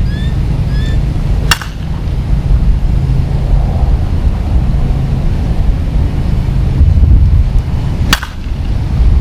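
Two sharp cracks of a Dudley Lightning Bobby Nifong softball bat hitting the ball, about six and a half seconds apart, over steady wind rumbling on the microphone.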